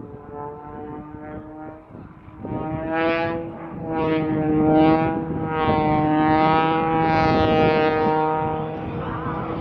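Extra 330SC aerobatic plane's six-cylinder engine and propeller droning in flight, a buzzing tone whose pitch wavers up and down as it manoeuvres. It swells loud in pulses from about two and a half seconds in, then eases slightly near the end.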